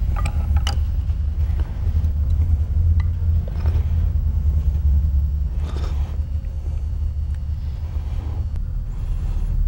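A steady low background rumble, with a few faint metallic clicks and scrapes as a screwdriver turns a small screw in the steel breech end of a side-by-side shotgun's barrels.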